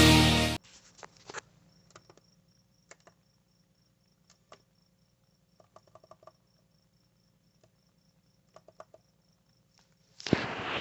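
Rock music cuts off half a second in, leaving near silence with faint scattered clicks, a faint hum and a faint high chirp pulsing about four times a second, like a cricket. A loud burst of radio sound starts near the end.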